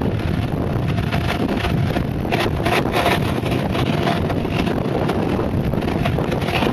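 Wind buffeting the microphone at speed over the steady rumble of mountainboard wheels rolling on asphalt, with frequent short gusts.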